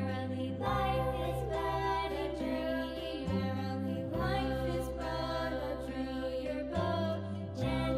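Background music of slow, sustained chords over a low bass note that shifts every few seconds.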